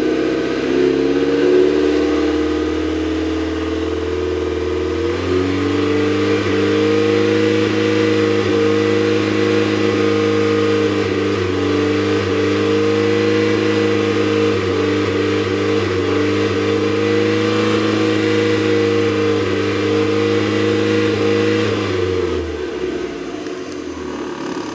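Mazda MX-5 four-cylinder engine running with a misfire. Its revs step up about five seconds in and are held steady, then drop away near the end.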